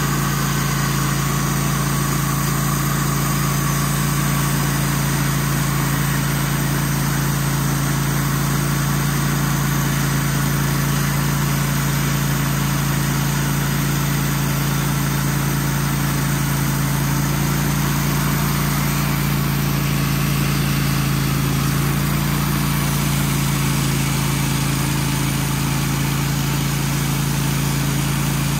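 Wood-Mizer portable band sawmill running steadily as its band blade cuts a slab off a large pine log.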